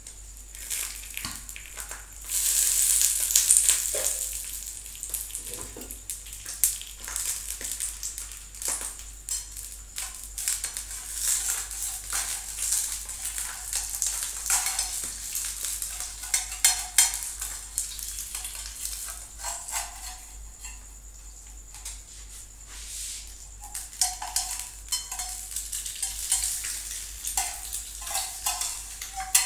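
An egg frying in oil in a small steel pan on a gas burner: a steady sizzle, loudest a few seconds in. Over it come repeated scrapes and taps of a metal spatula and clinks of the steel pan lid.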